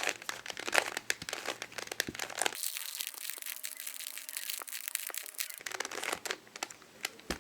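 Dense, irregular crinkling and crackling of something being handled close to the microphone.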